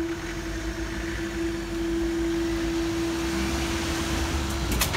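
Level crossing barrier's power unit whining at one steady pitch as the boom rises, cutting off suddenly near the end as the boom reaches the upright, followed by a couple of sharp clicks.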